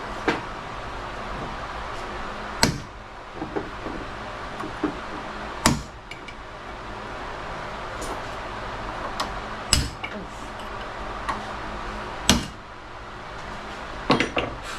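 Hammer blows on a punch driving the rear wheel bearing race out of a 2010 Polaris RZR 800S hub housing. There are about half a dozen sharp, ringing metal strikes a few seconds apart, lighter taps between them, and a quick double strike near the end.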